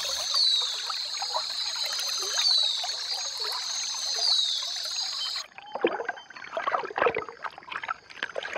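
River water sloshing and splashing under a high, steady chorus with a falling call repeated about every two seconds. About five seconds in, the chorus cuts off and sharper, irregular splashes follow.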